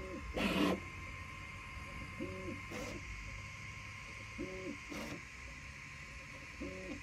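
Entina Tina2 Plus desktop 3D printer running a print: short pitched tones that rise, hold and fall, about every two seconds, as its stepper motors move the head and bed, over a steady faint high whine. A brief louder noise about half a second in, and a couple of faint clicks.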